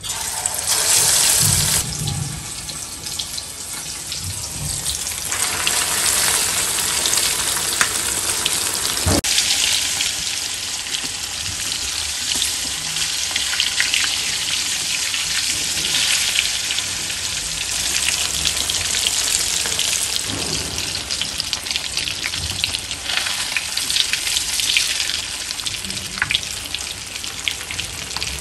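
Fish pieces frying in hot oil in a kadai, a steady crackling sizzle, with one brief knock about nine seconds in.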